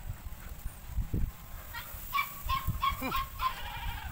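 Domestic fowl calling in the background: a run of short, repeated calls starting about a second and a half in, with a couple of low thumps.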